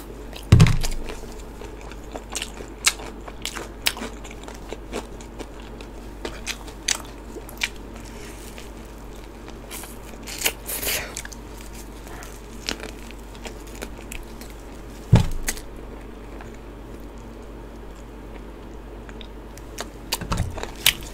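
Biting and chewing crispy fried chicken coated in cheese seasoning: repeated sharp crunches of the crust, with three louder dull thumps, about half a second in, around the middle and near the end.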